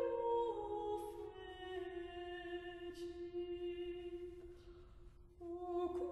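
Slow background music of long, held vocal notes moving in small steps over a sustained low note. It fades down about five seconds in, then a new phrase begins.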